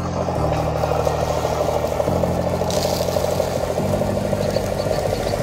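Simulated engine rumble from the RC truck's electronic engine-sound module, a steady pulsing idle-like drone. Low tones under it change pitch in steps every second and a half or so.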